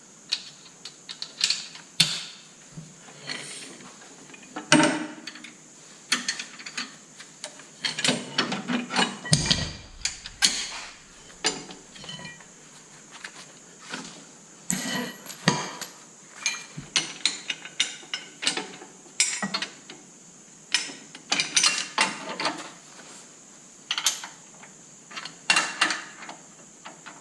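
Steel three-point hitch lift arms and their pins being handled and fitted by hand: irregular metal clanks, clicks and rattles, some ringing briefly.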